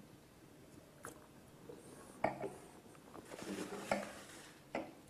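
A few faint, sharp clinks and knocks of stemmed wine glasses being handled and set down on the table, spread over a few seconds.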